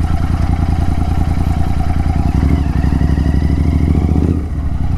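Royal Enfield Continental GT 650's parallel-twin engine running at low revs through Red Rooster aftermarket exhausts. The engine note rises a little past the middle and drops back about four seconds in.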